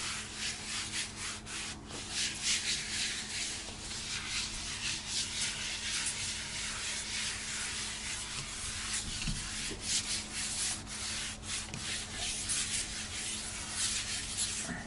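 A cloth being rubbed back and forth across a toilet-room floor by a gloved hand, making a rough, hissing scrubbing sound in quick, uneven strokes.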